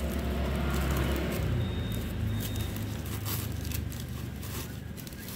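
Packing paper and soft wrapping being handled, with irregular crinkling and rustling, busiest around the middle, over a low steady hum.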